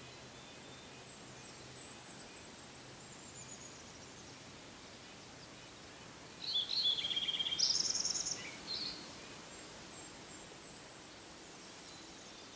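A songbird sings one short song of rapid trills at several pitches, lasting about two and a half seconds, about halfway through, over a steady faint outdoor hiss. Faint, thin, high notes from a more distant bird come before and after it.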